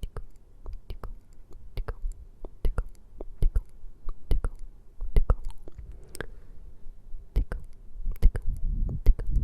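Close-miked ASMR tapping: quick, irregular taps and clicks, about three or four a second, over a low rumble that swells near the end.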